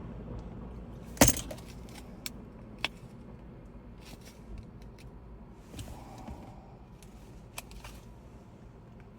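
Scattered small clicks and taps of tools and small parts being handled during a phone repair, with one sharper click about a second in and a few soft rustles.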